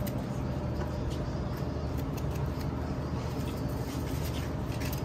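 A steady low engine rumble runs throughout. Faint short scrapes and hisses from the spray-paint work sit on top of it.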